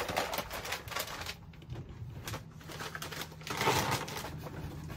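Plastic snack packets crinkling and rustling as they are handled and stacked into an overhead cabinet, with scattered light clicks and knocks and a louder rustle near the end.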